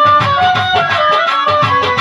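Violin playing a folk melody in an instrumental break of a Bengali Baul song, over steady drum beats.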